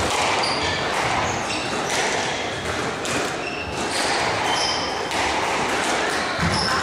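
Squash rally: the ball is struck by rackets and smacks off the walls, and the players' shoes give short, high squeaks on the wooden court floor. A steady hall background runs under it.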